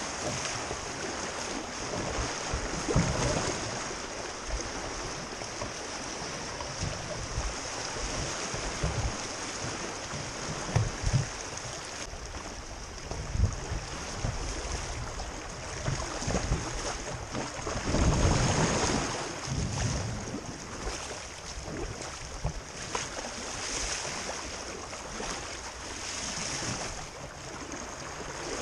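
Swift creek water rushing and hissing around a moving open canoe, with irregular gusts of wind rumbling on the microphone.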